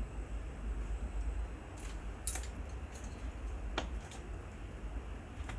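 A few sharp, scattered clicks and taps from climbing gear and the climber's shoes and hands against the limestone as she makes the first moves up the wall, over a low steady rumble.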